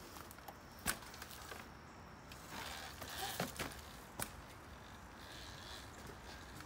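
Talaria XXX electric dirt bike ridden over backyard obstacles: a sharp knock about a second in and another just after four seconds, with a rough stretch of tyre and chassis noise on the dirt between them. A faint steady whine follows as it rides away.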